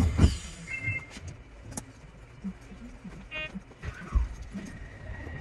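Sped-up sounds of an Odakyu 3000 series commuter train standing at an underground platform: a jumble of short chirps, clicks and falling whistle-like glides. A heavy thump comes about four seconds in, then a steady high tone.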